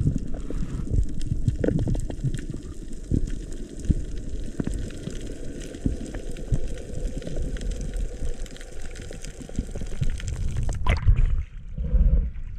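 Underwater sound of a free dive picked up by the camera: a steady low rush of water with many small crackling clicks. About eleven seconds in the camera breaks the surface, with a sharp splash and then water sloshing.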